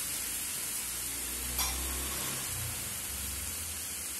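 Moringa drumstick pieces, onion and tomato frying in oil in a kadai, a steady sizzle, with one brief tap about one and a half seconds in.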